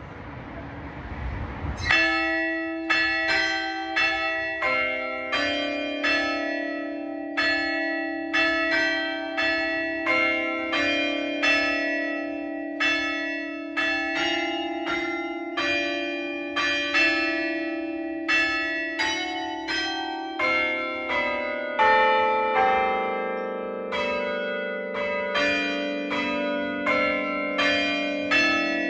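Church tower bells playing a tune, struck about twice a second, each note ringing on under the next. The bells begin about two seconds in, after a brief stretch of outdoor noise.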